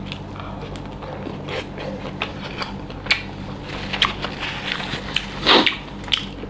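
Close-up chewing and wet lip smacks of a person eating fatty pork curry and rice, with quick mouth clicks throughout and one louder, longer mouth noise about five and a half seconds in.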